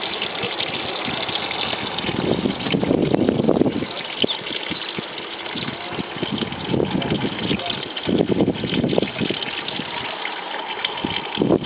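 Water running and splashing out of a basin, in uneven surges over a steady rumble.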